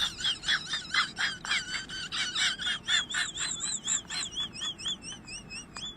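Rapid bird-like chirping, about four chirps a second, giving way about halfway through to a wavering, warbling whistle.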